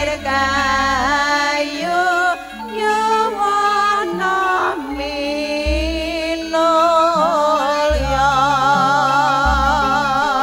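Campursari band playing a Javanese langgam, with female sinden singing the melody in long notes with vibrato over a slow, sustained bass line.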